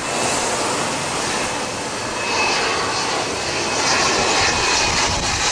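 Small twin-engine business jet on low final approach: a steady rushing jet noise with a thin high whine that comes in about two seconds in, growing louder over the last couple of seconds.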